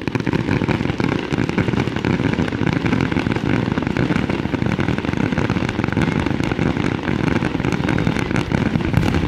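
Fireworks going off in a dense, unbroken barrage of rapid cracks and pops that starts suddenly and keeps up without a pause.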